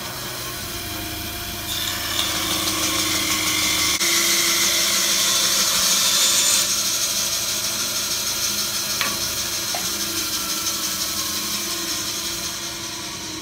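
A Grizzly G0555LX 14-inch bandsaw running and cutting through a wooden board on its first test cut. The cutting noise grows louder about two seconds in, is strongest in the middle, and eases off toward the end as the cut finishes.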